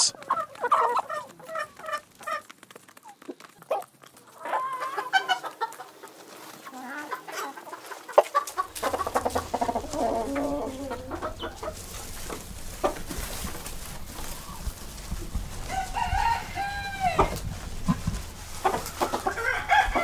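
A flock of chickens clucking and calling, with a longer crow-like call from a rooster a little after fifteen seconds in. A steady low hum comes in about nine seconds in.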